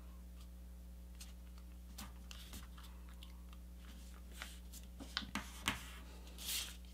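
A sheet of paper being folded and creased by hand on a cutting mat: faint rustles and small taps, a few sharper crinkles about five seconds in, and a short swish of paper sliding near the end. A steady low hum sits underneath.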